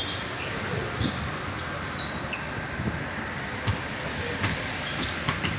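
A basketball bouncing on a court, several sharp thuds at uneven intervals over a steady background rush, with a few short high squeaks.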